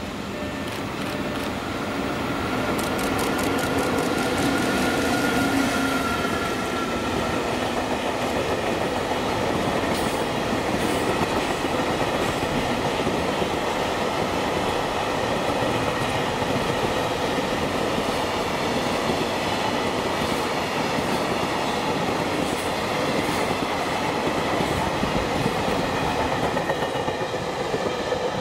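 An EF65 electric locomotive hauling a long container freight train past. The sound builds over the first few seconds as the locomotive approaches, then holds as a steady rumble with the clickety-clack of the wagons' wheels over rail joints.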